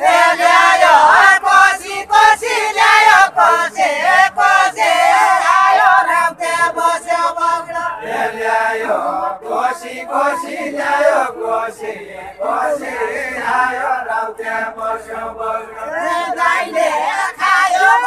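Unaccompanied Deuda folk singing: a woman's voice sings a verse of the sung question-and-answer while a line of voices chants along, with no instruments.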